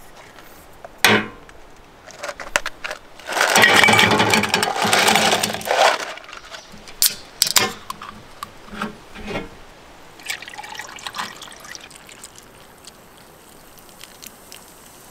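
A sharp knock, then a loud rattle for a couple of seconds as ice goes into a stainless steel cup. Two sharp clicks follow as a soda can's tab is cracked open, and then sparkling soda is poured over the ice, fizzing faintly.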